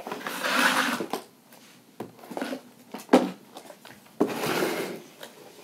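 Handling noise from things being moved about at close range: two rustling, scraping stretches of about a second each, with a few sharp knocks between them.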